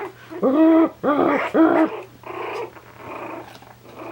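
Three-week-old Coton de Tulear puppies play-fighting. One puppy gives three quick, loud yelps within the first two seconds, then quieter grumbling noises follow.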